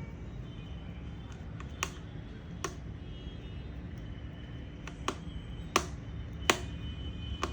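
About six sharp, scattered clicks and taps of hard parts being handled while a laptop is reassembled, over a steady low hum.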